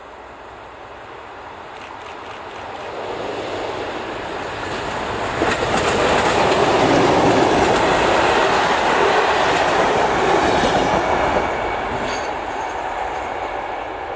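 Class 754 diesel-electric locomotive hauling passenger coaches past at close range. The engine and wheel rumble grow steadily louder and peak as the coaches go by, with clickety-clack from the wheels over the rail joints. The sound then fades as the train moves away.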